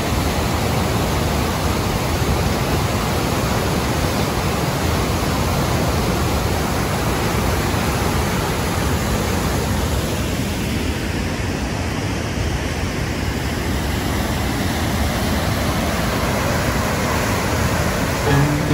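Whitewater waterfall rushing steadily over rock ledges on a big river, running at about 1550 cubic feet per second.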